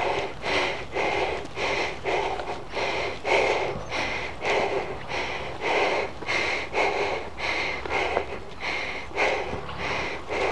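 A mountain biker's heavy panting close to the microphone, about two rough breaths a second in a steady rhythm.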